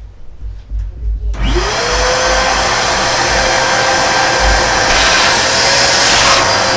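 A Fujihama 1200 W wet/dry/blow canister vacuum cleaner is switched on about a second and a half in. Its motor spins up with a quickly rising whine, then runs steadily with a rush of air.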